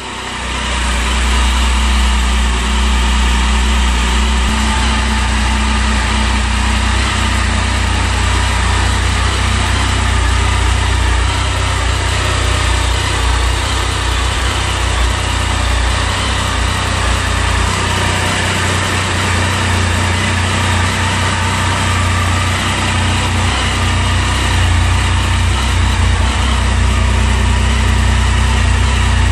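Triumph Tiger 1050's inline three-cylinder engine idling steadily.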